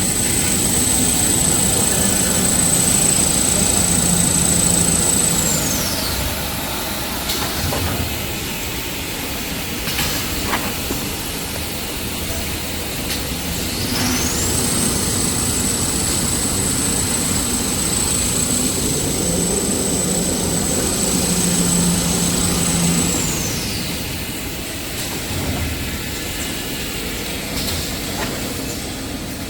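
Toilet paper rewinding production line running with a steady mechanical clatter and a high whine that falls away about six seconds in, rises again about fourteen seconds in, holds for around eight seconds, and falls away near the end, as the machine speeds up and slows down in its cycle.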